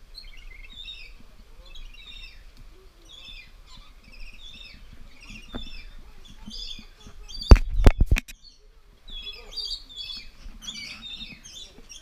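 Small parrots chirping and twittering, many calls overlapping. About eight seconds in comes a quick run of four or five loud, sharp thumps close to the microphone.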